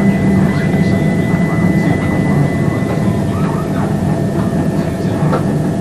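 Inside a Class 357 electric multiple unit moving slowly through a station: a steady rumble of wheels on track with a constant electric whine from the train's traction equipment.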